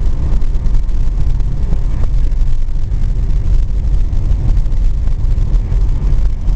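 Car driving slowly along a narrow paved lane, heard from inside: a steady, loud low rumble of engine and tyres.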